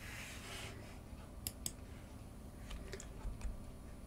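Quiet room tone with a soft hiss at the start and a few faint, sharp clicks.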